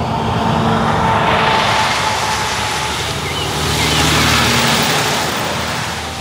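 A semi-truck pulling a curtain-side trailer driving past: engine hum and tyre noise grow louder to a peak about four seconds in, then fade as it goes by.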